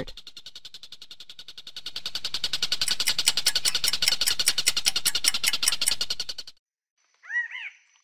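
A rapid, even pulsing trill, like an insect's, that swells about two seconds in and stops abruptly; then a few short chirping calls near the end.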